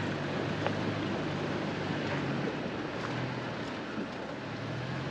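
Car driving, a steady rumble of engine and tyres with a low hum and a few small knocks.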